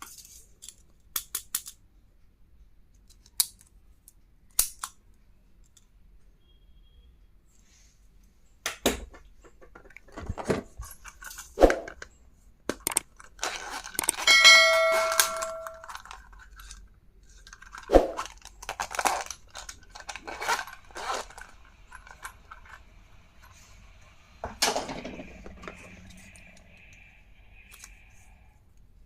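Stationery items being handled and unpacked: scattered clicks, taps and knocks of plastic and metal pieces, with a short metallic ringing ding about halfway through.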